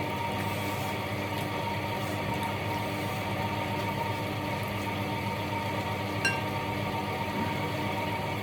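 A steady machine hum holding several fixed pitches, and about six seconds in a single sharp clink of tableware that rings briefly.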